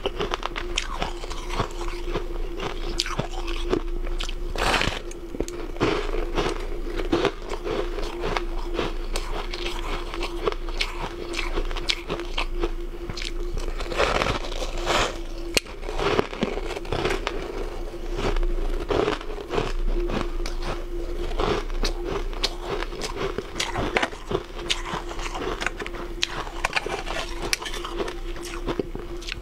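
Frost-covered ice being bitten and chewed close to the microphone: continuous, dense, irregular crunching. A steady faint hum runs underneath.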